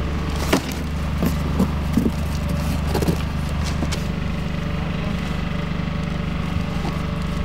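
A vehicle engine idling steadily, with a few light knocks and rattles in the first three seconds as a cardboard box is set onto a bicycle.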